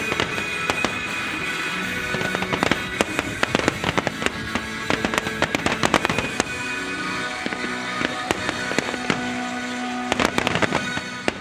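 Aerial firework shells bursting and crackling, many sharp bangs in quick, irregular succession, over music with held tones.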